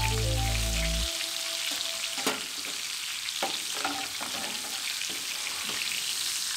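Steak frying in butter in a cast iron skillet: a steady sizzle with scattered pops and clicks as it is basted. Background music plays over the first second and cuts off suddenly.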